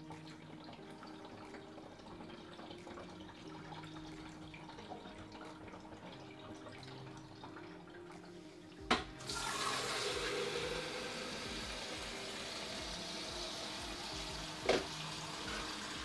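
Water running faintly down into a countertop dishwasher's water tank after being poured in from a jug. About nine seconds in there is a clunk, and a kitchen tap runs into a jug, with a rising note as it starts to fill and a knock near the end.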